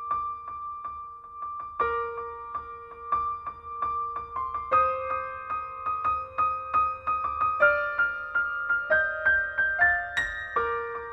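Background music on a keyboard, a tune of quick repeated notes that climbs in pitch through the middle and drops back near the end.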